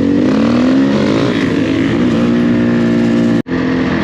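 Off-road motorcycle engine running on the move, its revs rising and falling, with a noisy rush over it. The sound drops out for an instant about three and a half seconds in.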